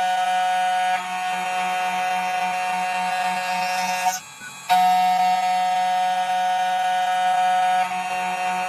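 Background music: a held, buzzy synth drone with many stacked tones. It cuts out for about half a second a little past the middle, then carries on.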